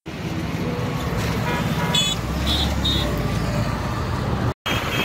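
Road traffic passing close by, with a low rumble and a few short horn toots about two to three seconds in.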